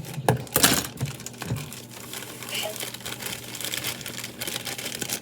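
Plastic packaging crinkling and rustling as it is handled and pulled at to open it, with a few sharp crackles in the first second and a half.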